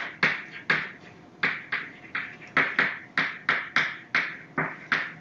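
Chalk writing on a blackboard: a quick run of short strokes and taps, two or three a second.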